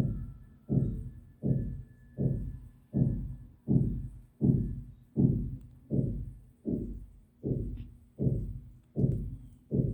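A steady beat of low, dull thumps, one about every three-quarters of a second (about 80 a minute), each dying away quickly.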